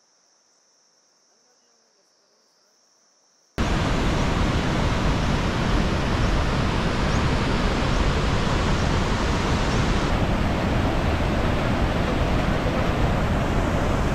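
A faint steady high-pitched insect drone, then about three and a half seconds in the loud, continuous rushing of the fast glacial Barun River cuts in suddenly and carries on.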